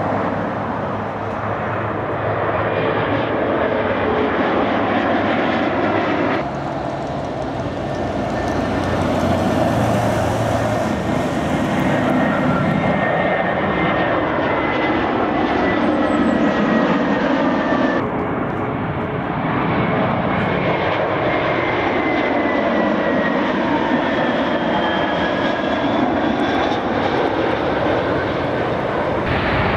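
Jet airliners passing low overhead on landing approach, among them an Airbus A320 with its gear down. The engines give a steady loud rush with whining tones that slowly glide down in pitch as each aircraft goes by. The sound jumps abruptly twice, where separate passes are joined.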